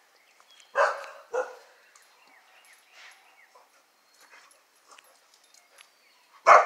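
Dog barking while dogs play-fight: two sharp barks about a second in, half a second apart, and another loud bark near the end, with fainter small noises between.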